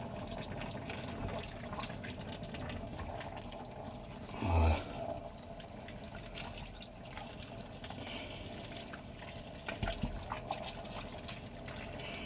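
Wooden spoons stirring squid rings and vegetables through the sauce of a stew in a cast-iron casserole, a soft wet sloshing and scraping with small clicks, over the steady low sound of the simmering pot. A brief low bump about four and a half seconds in.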